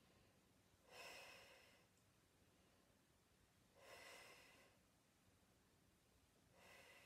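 A woman's paced breathing during a Pilates abdominal exercise: three faint breaths about three seconds apart, with near silence between.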